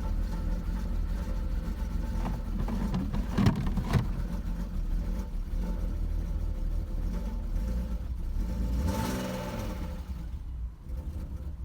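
BMW E39's engine running rough just after starting, with two sharp pops about three and a half and four seconds in and a brief rise in engine speed about nine seconds in, then quietening. The owner describes it as misfiring, popping, shaking and stalling.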